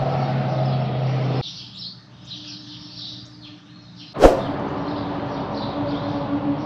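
Birds chirping over a low steady hum. A louder, lower hum cuts off suddenly about a second and a half in, and a single sharp whoosh-like hit comes about four seconds in.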